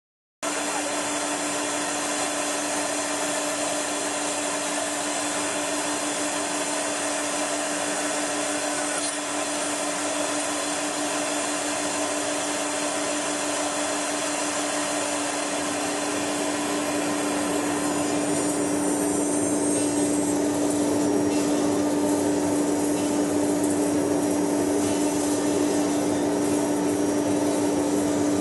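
Steady whirring machine noise with one constant hum, starting abruptly and growing a little louder about two-thirds of the way through, from machinery running with the robot arm in a robot milling workshop.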